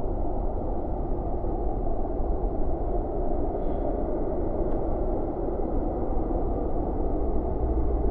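Steady low rumble of outdoor background noise, even throughout, with no distinct calls, clicks or other events standing out.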